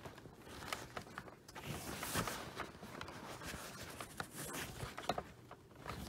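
Faint rustling and scraping with a few small clicks as a synthetic cloth vacuum bag is worked by hand onto the fill tube of a Hoover Elite upright, its rubber-gasketed collar being pushed into place.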